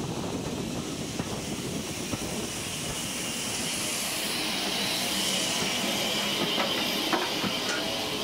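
Steam-hauled heritage train running with a steady rumble. A hiss of steam builds through the middle, and a few sharp clicks come near the end.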